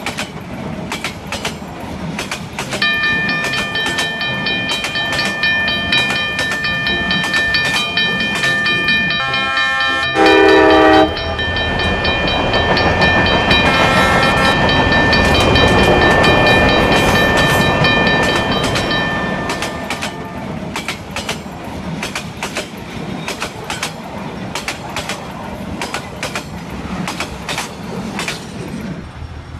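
Train sound effects: wheels clattering over the rail joints throughout, with a steady high ringing, like a crossing signal, from about three seconds in until about nineteen. A loud train horn blast about ten seconds in, then a louder rush as the train passes, fading after about nineteen seconds.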